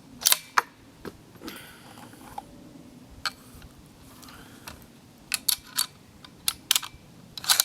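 Sharp handling clicks and clacks: two near the start, one on its own around the middle, then a quick run of several in the last couple of seconds.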